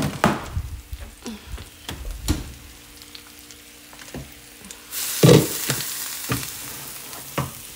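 Basa fish steaks sizzling in hot oil on a metal baking pan just out of the oven, with several knocks of the pan being handled; the loudest knock comes about five seconds in, and the sizzle grows louder after it.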